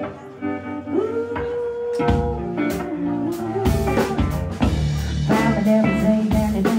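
Live rock band playing. An electric guitar picks out notes and bends one up into a held note about a second in, then the drums and bass come in and the band plays at full volume from about two seconds in.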